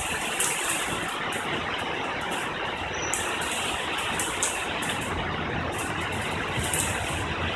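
Steady rain during a thunderstorm, an even hiss with scattered sharper crackles of drops.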